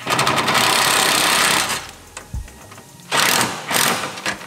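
Handheld power tool, a drill or driver, run at speed in one long burst of under two seconds, then two short bursts near the end, driving into the car's bodywork or a fastener.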